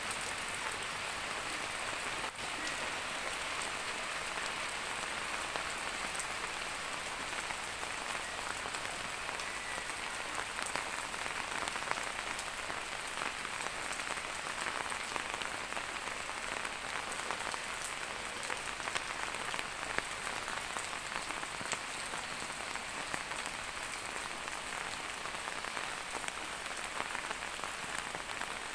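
Steady rain falling and pattering on surfaces, with many small drop ticks.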